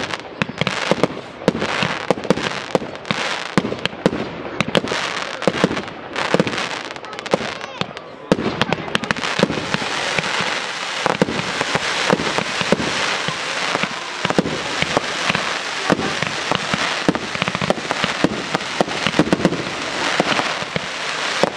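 Fireworks display: a quick succession of sharp bangs from bursting shells. From about eight seconds in it thickens into a continuous rush of noise, with pops and bangs all through it.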